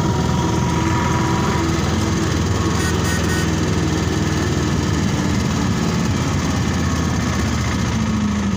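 Steady engine and road noise of a moving vehicle, heard from on board while it drives at a constant pace.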